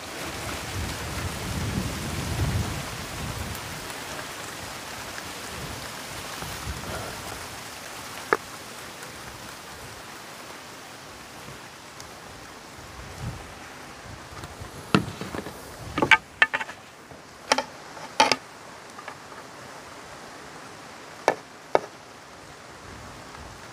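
Fish frying in hot oil in a pot over a fire: a steady sizzle, strongest in the first few seconds. A handful of sharp knocks comes between about fifteen and twenty-two seconds in.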